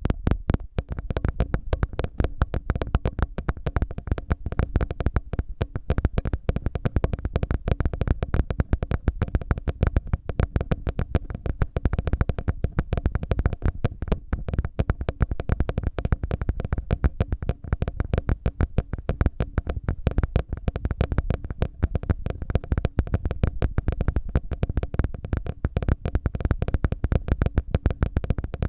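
Ear-cleaning ASMR sounds: an ear pick scratching and rubbing close against a microphone's ear, heard as a dense, steady stream of rapid crackling clicks.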